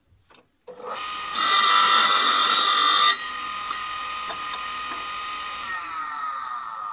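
Small bench table saw starting up, then cutting through a piece of wood for about two seconds, much louder and with a high whine while in the cut. It runs free again and, near the end, is switched off and winds down with falling pitch.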